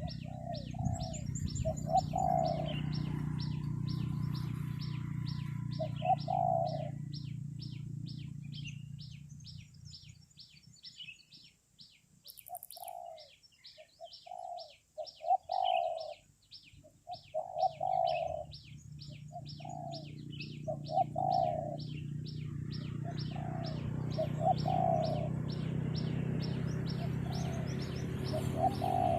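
Zebra doves cooing, their soft rolling phrases coming in groups and pauses, over a high, rapid ticking call that repeats about three times a second throughout. A low rumble sits underneath, fading away in the middle and returning near the end.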